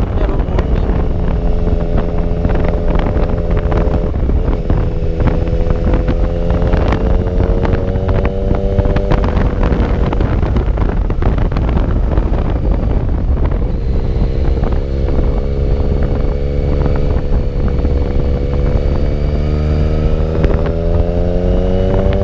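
Yamaha motorcycle engine running at road speed, its pitch rising gently as it speeds up around a third of the way in and again near the end. Steady wind buffets the microphone underneath.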